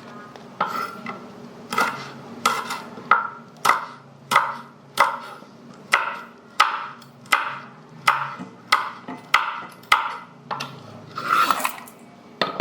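Knife slicing chili peppers, a steady series of crisp cuts about every two-thirds of a second, with a louder, busier cluster near the end.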